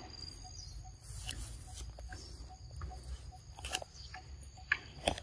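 Outdoor forest ambience: a faint, steady high insect drone with a soft pip repeating about two or three times a second, and a few sharp clicks or taps near the end.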